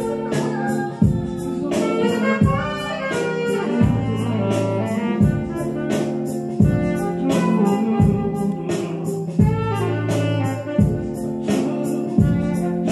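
Live band music with a saxophone playing the melody over bass and drums, with a steady beat of about three hits every two seconds.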